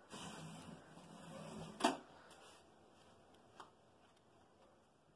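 Faint room noise with a brief hiss at the start, then a single sharp knock about two seconds in and a fainter click later.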